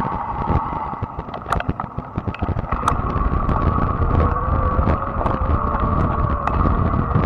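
Fat-tire e-bike under way on asphalt: the electric motor's steady whine, stepping up in pitch about three seconds in, over low tyre rumble and wind buffeting on the microphone, with scattered light clicks.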